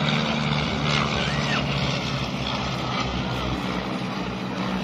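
Piston engines of a three-ship vintage propeller formation: a Boeing Stearman E75 biplane with a Lycoming R680 radial and two de Havilland Chipmunk T.Mk.20s with Gipsy Major inline engines. They give a steady propeller drone as they fly past overhead.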